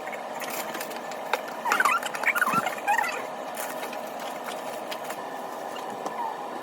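Pomeranian giving a quick run of high, wavering whines and squeaks, a cluster of short calls about two seconds in, with faint clicks scattered through.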